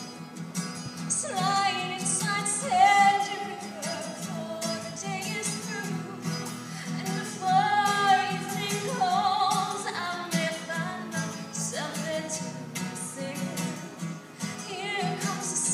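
A woman singing a song with guitar accompaniment, holding long notes with a wavering vibrato.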